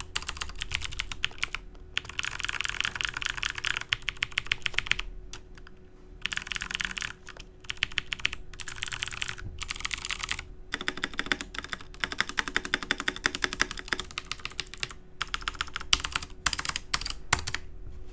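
Typing on an XPG Summoner mechanical keyboard with Cherry MX Blue clicky switches. Rapid key clicks come in runs of one to three seconds, with short pauses between them.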